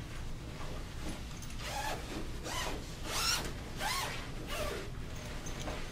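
Zipper on a fabric pet-bed bolster cover being pulled open in several short runs, with the cloth rustling as it is handled.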